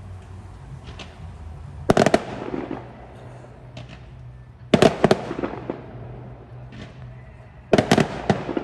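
Fireworks going off: three volleys of several quick, sharp bangs, about three seconds apart, each with a short echo.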